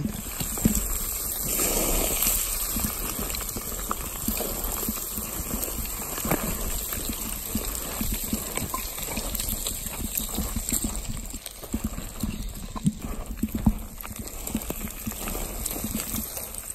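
Hiking boots crunching and scraping on loose shale scree in a steady run of downhill steps, with a steady low rumble underneath.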